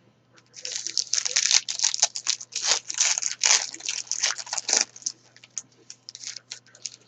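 Trading card pack wrapper crinkling and tearing as it is opened by hand, with dense crackling for about five seconds, then lighter rustles and ticks as the cards are pulled out.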